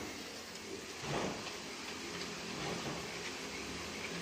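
Noodles cooking in hot liquid in a wok over a gas flame: a steady bubbling hiss, with a soft swell about a second in as the ladle moves the noodles.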